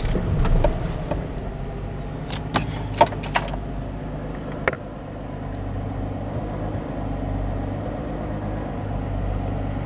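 The 2013 Jeep Wrangler JK's 3.6-litre Pentastar V6 idling steadily at about 800 rpm, heard from inside the cabin. A few light clicks and taps come in the first few seconds.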